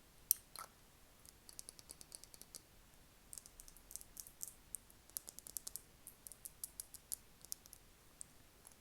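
Close-up ASMR clicking: light, crisp clicks in irregular runs of several a second, with one louder click just after the start.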